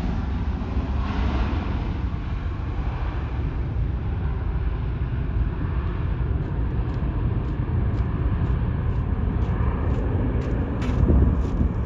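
Jet airliner's engines rumbling as it moves away: a steady low roar whose hiss fades out, with a brief swell near the end.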